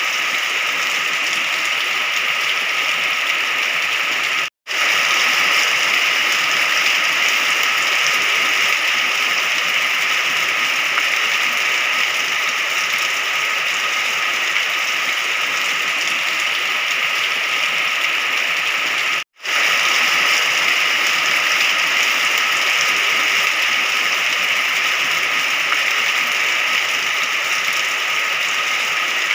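Steady rain, an even hiss, broken twice by a brief cut to silence, about four and a half seconds in and again about nineteen seconds in.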